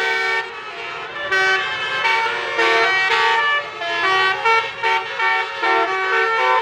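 Bus telolet basuri multi-tone musical horn playing a tune, several horn notes sounding together and stepping from note to note, with a brief drop in level about half a second in.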